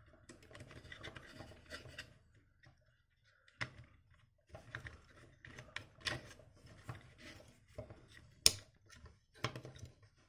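Hard plastic toy parts being handled as a 1:18 action figure is fitted into a toy mech's cockpit: scattered small clicks and knocks with soft rubbing between them. One sharper click comes late on.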